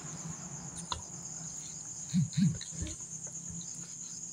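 Spatula mixing wet, cornstarch-coated chicken pieces in a stainless steel bowl, with a click about a second in and two soft, loud thumps a little after two seconds. Crickets chirp steadily and high in the background.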